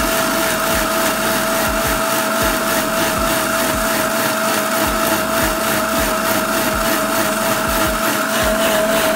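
Electric mixer grinder (mixie) running steadily with a steady whine, blending tomatoes into purée in its stainless steel jar.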